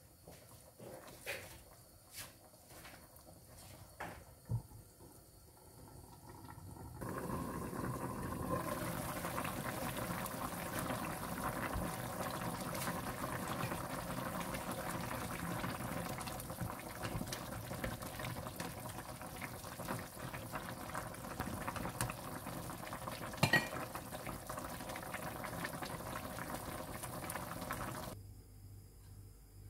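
Chicken tinola soup with green papaya boiling in a nonstick pan: a few light knocks at first, then a steady bubbling that starts about seven seconds in and cuts off near the end.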